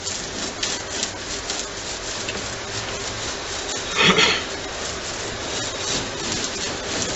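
Brush scrubbing epoxy resin onto bare plywood in quick back-and-forth strokes, with one louder, longer scrape about four seconds in.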